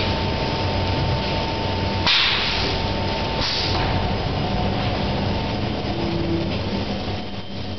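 An automatic film bagging machine and its belt conveyor running: a steady machine noise with a low hum. A thin steady whine cuts off about two seconds in, and two short hisses come at about two and three and a half seconds.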